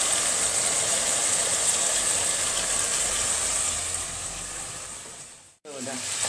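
Veal oxtail and chopped vegetables sizzling in oil and wine in a pot over high heat, a steady hiss as the wine cooks off. It fades out near the end into a moment of silence.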